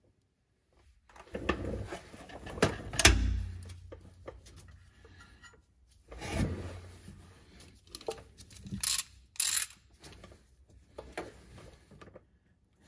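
Irregular knocks, clicks and scrapes of a wrench and gloved hand working an engine oil drain plug loose on the underside of a car's oil pan, with the loudest knock about three seconds in.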